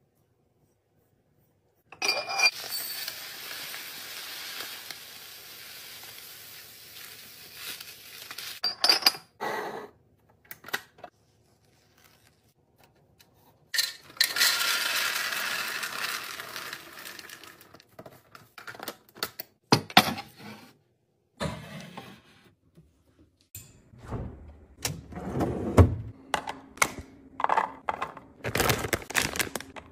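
Dry food poured into glass storage jars: a steady hissing stream into a jar, then a dense rattling pour of small dry pieces into a tall glass canister about a quarter of the way in. Near the end, blueberries tumble from a measuring cup into a container, with scattered clinks and taps of glass between.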